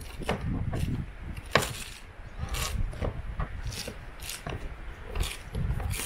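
Flexible solar panel being peeled off a roof against strong double-sided adhesive tape, with a razor blade cutting under the edge: a series of sharp crackles and tearing sounds, about one or two a second, as the tape lets go and the thin panel flexes. The loudest crackle comes about a second and a half in.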